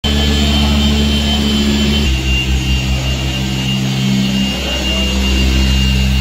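Handheld electric dual-action polisher with a foam pad running on car paintwork: a steady motor hum with a thin high whine, its pitch shifting slightly about two seconds in.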